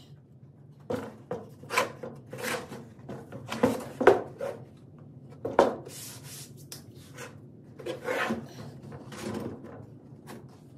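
A series of short, irregular scraping strokes, the loudest about four seconds in, dying away before the end.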